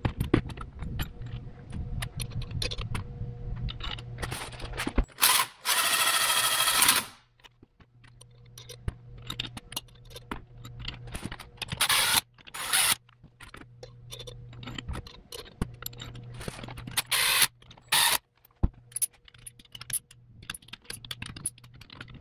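Steel bolts and washers clinking and knocking against an aluminium engine block as its halves are bolted together, with a cordless driver whining in several short runs as it spins bolts in, the longest about two seconds a quarter of the way through.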